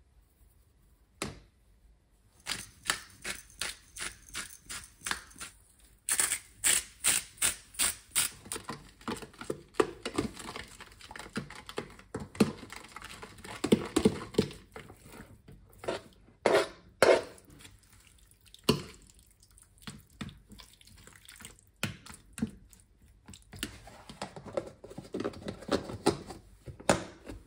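A fork beating a liquid marinade in a plastic container, in runs of quick regular strokes that speed up to about three a second, then irregular stirring, knocks and scrapes against the container.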